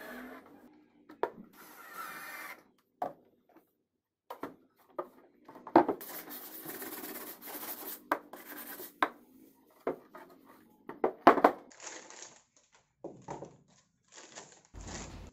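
Workshop handling noises: knocks and clicks of plywood drawer parts being moved, a stretch of scraping and rubbing from about six to nine seconds in, and near the end the crinkle and tear of plastic wrapping being pulled off a drawer slide.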